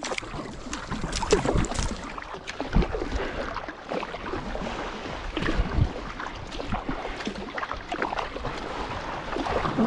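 Sea water splashing and lapping around a sea kayak as it is paddled, in many short irregular splashes, with splashes from Atlantic bottlenose dolphins surfacing close to the bow.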